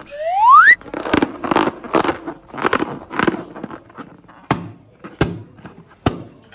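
A short squeak rising steeply in pitch, then a run of sharp wet clicks and crackles, about two or three a second, thinning out near the end: slime being squeezed and mixed, with a rubber balloon squeaking.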